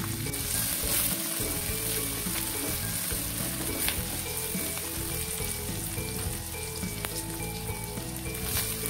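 Sliced onions and minced garlic sizzling in hot oil in a wok as they are stir-fried with a silicone spatula, with a few light clicks of the spatula against the pan.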